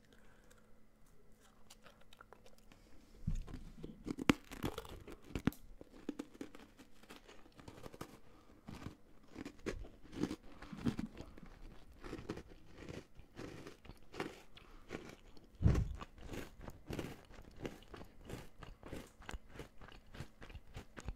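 Crisp biscuit crunched and chewed right at the microphone, starting about three seconds in: irregular crackly bites and chewing, with two louder crunches.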